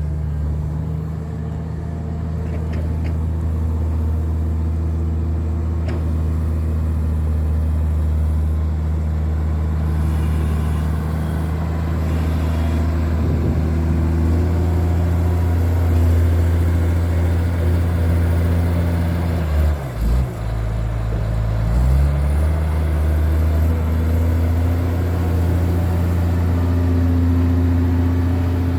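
Wheel loader's diesel engine running steadily under work, a deep continuous drone; about two-thirds of the way through its note briefly drops and wavers, then picks back up.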